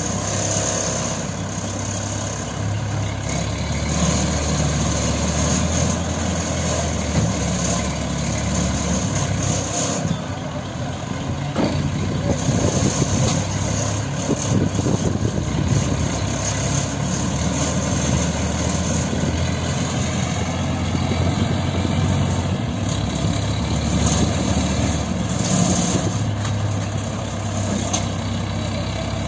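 Diesel engines of two mobile hydraulic cranes running steadily under load as they lift an overturned truck. The engine note shifts a few times as the operators work the lift.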